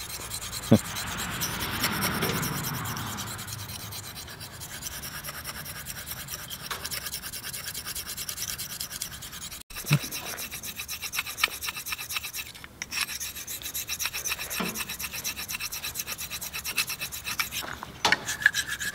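Steel knife blade stroked back and forth on a hand-held, very fine Belgian whetstone: quick repeated scraping rubs of the blade through the stone's dark slurry, polishing the edge at the final honing stage.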